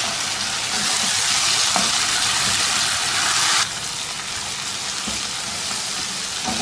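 Chopped onions and tomatoes sizzling in hot oil in a nonstick pan as a spatula stirs them. The sizzle grows louder about a second in and drops off suddenly at about three and a half seconds.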